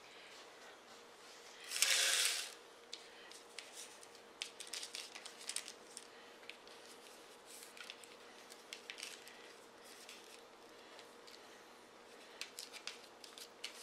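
Hands shifting puff-pastry hand pies around on a parchment-lined sheet pan: a short, louder rustling scrape about two seconds in, then scattered light taps and paper rustles as the pastries are moved.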